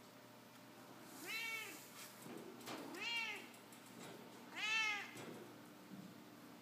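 Domestic cat meowing three times, about a second and a half apart, each meow rising then falling in pitch; the last meow is the loudest.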